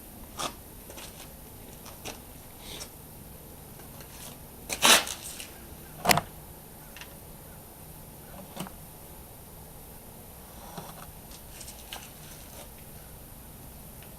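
Scattered light knocks and handling noises over a faint steady hiss, with two sharp, much louder knocks about five and six seconds in, typical of handling things while wiping up spilled oil.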